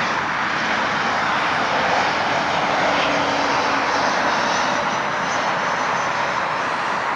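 WestJet Boeing 737 on landing approach, its jet engines making a steady rushing noise with a faint high whine in the second half.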